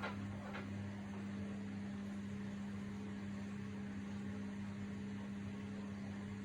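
Samsung WW80TA046AX front-loading washing machine running with a steady low hum and a faint knock shortly after the start, part of the noise that the owner calls horrible.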